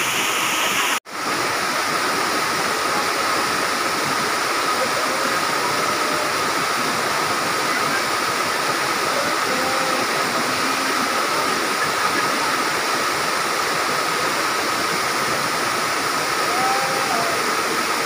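Waterfall and the white-water rapids of its rocky stream: a steady, even rush of falling and churning water. About a second in it breaks off for an instant.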